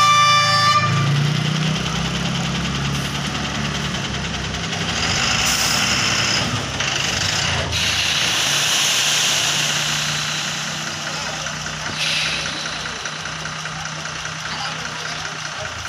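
Tipper dump truck's diesel engine running steadily with the body raised, dumping a load of sand. A horn blast ends about a second in, and a rushing hiss comes and goes in the middle, with a short burst of hiss near the end.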